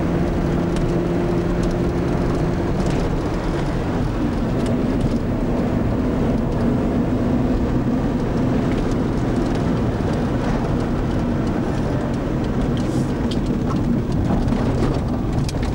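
Car engine and road noise heard from inside the cabin while driving along at speed. The engine's hum changes pitch about three seconds in.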